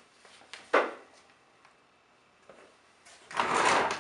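A plastic shop vac being handled and moved on a concrete floor: a sharp knock about a second in, then a short, loud scraping rush near the end.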